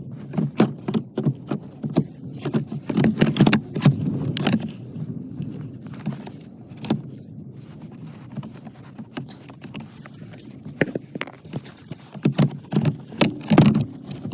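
Irregular clicks, knocks and rattles of hand tools and plastic parts being handled while a car's heater blower is dismantled under the dashboard. The clicks are busier at the start and near the end, and sparser in the middle.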